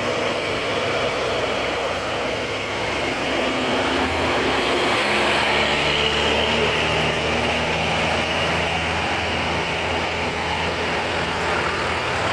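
A large diesel vehicle, most likely a bus, running on the road over steady tyre and road noise. Its low engine note comes in about two seconds in and grows louder from about four seconds, then holds.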